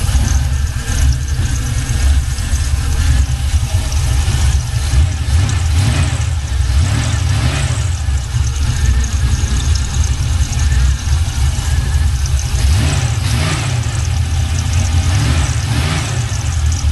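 1979 Buick Regal's 6.0-litre V8 running as the car is driven: a steady low rumble, swelling louder a few times.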